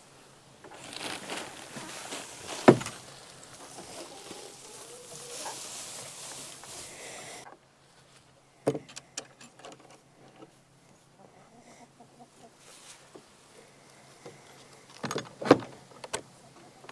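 Dry straw rustling as it is broken up and handled, with a sharp knock a few seconds in. The rustling stops suddenly, leaving only a few scattered knocks and taps.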